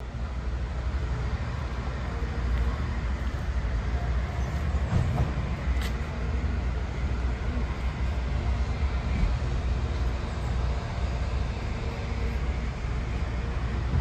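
Steady outdoor noise with a deep rumble and a hiss, no clear pitch, rising and falling a little in loudness.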